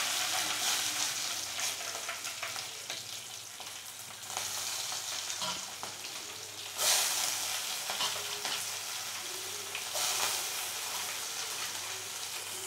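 Mustard seeds, urad dal and cumin frying in hot oil in a stainless steel kadai, a steady sizzle that swells louder three times as slit green chillies and then chopped onion are added to the tempering.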